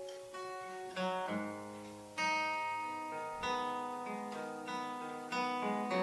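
Acoustic guitar playing a slow instrumental passage of chords, about seven over the stretch, each left to ring into the next.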